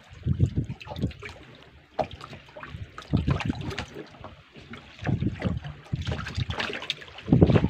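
Gusty wind buffeting the microphone, with irregular knocks and thumps from a small fibreglass boat.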